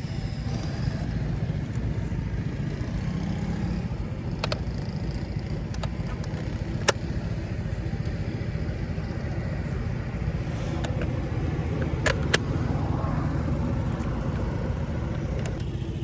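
A car driving, with a steady road and engine rumble and a few sharp clicks, about 4, 7 and 12 seconds in.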